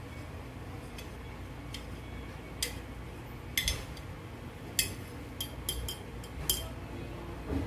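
A metal spoon clinking against a glass: about nine light, sharp clinks at uneven intervals, starting about two and a half seconds in, over a low steady background hum.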